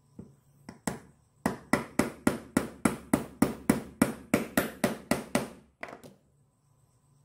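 A claw hammer tapping a small metal pinion gear onto the shaft of a 775 DC motor. A few light taps come first, then a steady run of about four sharp, ringing metal knocks a second, and two last taps near the end.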